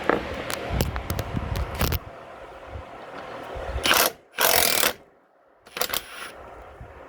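Impact wrench hammering in short runs on stuck exhaust bolts through the first two seconds. Around the middle come two loud, short rushes of noise, then a few clicks.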